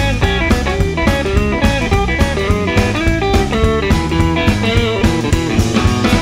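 Blues-rock band music: electric guitar playing over bass and a steady drum beat.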